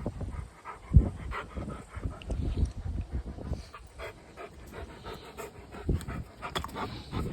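A Rottweiler panting during play, with a sharp thump about a second in.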